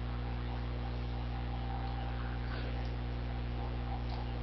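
Steady electrical mains hum with a faint even hiss underneath, unchanging throughout.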